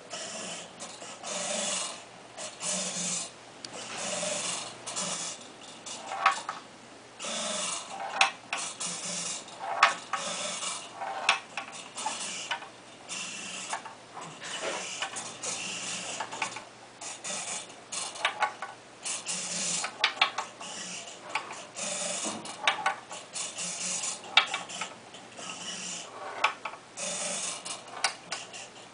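Small electric motors tilting a wooden labyrinth board, whirring in short repeated bursts, with a metal ball rolling and knocking against the wooden maze walls.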